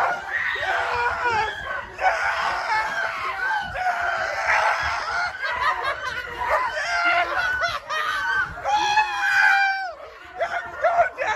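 A small group of people screaming and yelling at once in excitement as a close basketball game ends, several high voices overlapping, with a short lull about ten seconds in.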